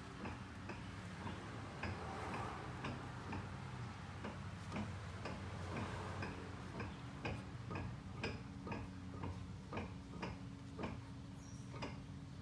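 Front CV axle knocking: a regular run of sharp clicks, about two a second, over a steady low hum. This is the typical sign of a worn CV joint.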